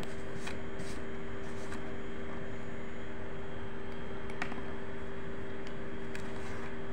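Steady hum at two fixed pitches over a constant background rush, with a few faint ticks.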